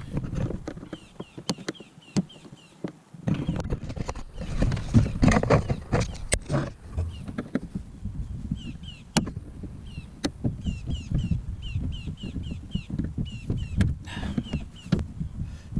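Hands working on a plastic kayak seat, prying at push rivets: scattered clicks, knocks and handling rustle over a low rumble. A run of quick, high chirps sounds through it twice.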